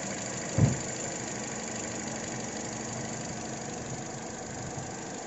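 Toyota Corolla Altis engine idling steadily with a replaced ignition coil pack, running evenly and judged free of misfire. A single brief thump about half a second in.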